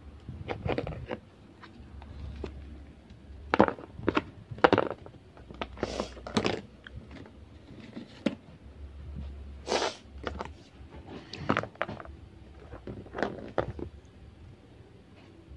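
Plastic doll-house toys knocking and clattering as they are handled, a string of short irregular knocks with a few louder ones.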